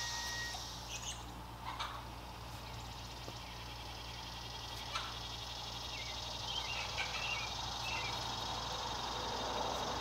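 Small birds chirping a few times, around a second in and again past the middle, over a steady outdoor hiss and low hum. A couple of short knocks come from potatoes being handled in the soil.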